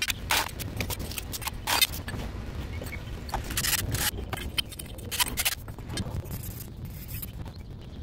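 Clinks and short scrapes of metal tools being worked on the end of a copper pipe, in irregular bursts over a steady low rumble.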